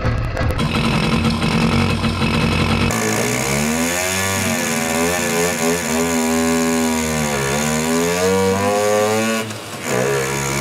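Simson two-stroke single-cylinder moped engine with a transparent cylinder head, running. It holds steady at first, then from about three seconds in is revved up and down several times. It dips briefly near the end and settles back to a steady run.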